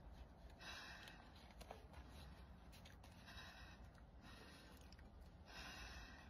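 Near silence with three faint breaths, each under a second long and about two and a half seconds apart.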